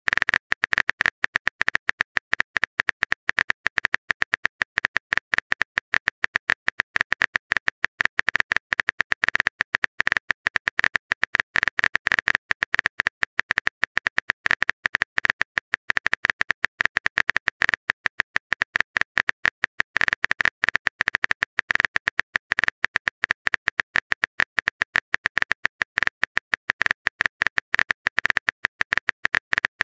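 Rapid, irregular clicking of a phone keyboard's typing sound effect, the sharp clicks packed closely together.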